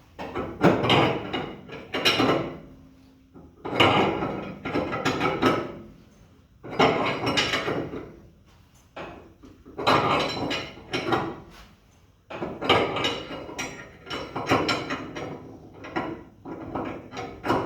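Hand ratchet wrench clicking in about six bursts of quick strokes, a short pause between each, as it backs off the threaded rod of a homemade spring compressor to let down a 1963 Ford Fairlane's front coil spring, which is still under heavy tension.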